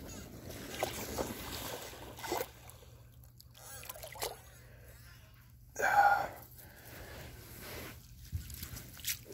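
A hooked carp splashing and swirling at the surface close to the bank while the angler breathes hard. A loud gasp comes about six seconds in.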